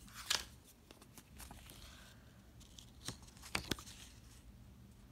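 Paper and plastic album packaging handled by hand: low rustling, with a few short sharp crackles as a packet is torn or snipped open.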